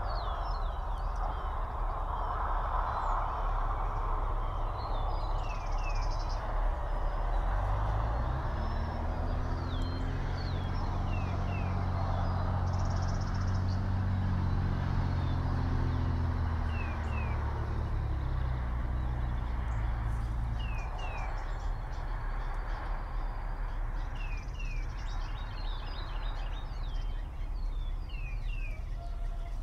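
Small songbirds chirping with short, quick down-sliding calls. Under them a low engine drone swells from about a quarter of the way in, bends slowly in pitch and fades out after about twelve seconds, like a vehicle or light aircraft passing at a distance.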